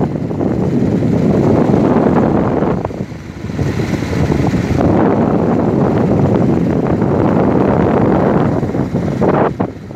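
Wind rushing over a phone's microphone from a moving vehicle, with road and engine noise underneath. It eases briefly about three seconds in.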